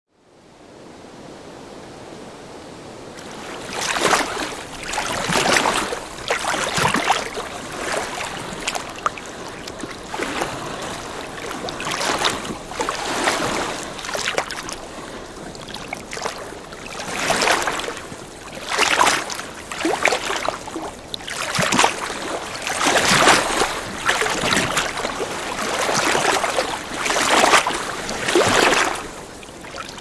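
Small lake waves lapping at the shore, one splashing wash after another every second or two, fading in over the first few seconds.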